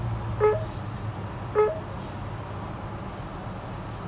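Drive-thru ordering touchscreen kiosk beeping twice, about a second apart, each beep a short two-note chirp stepping up in pitch as toppings are tapped. A steady low hum from the waiting car runs underneath.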